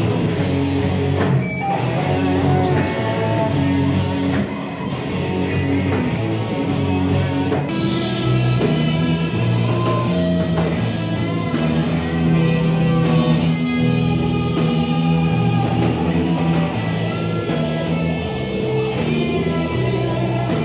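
Rock band playing live: electric guitars, bass and drum kit, dense and loud. The sound changes abruptly about eight seconds in.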